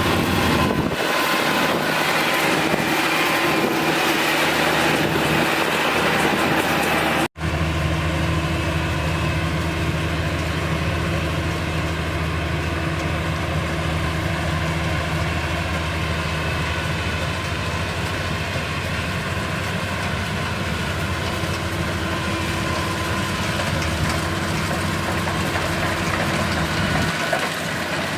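Kubota DC-35 rice combine harvester's diesel engine running steadily under load while harvesting, with the noise of its machinery; the sound cuts out for an instant about seven seconds in.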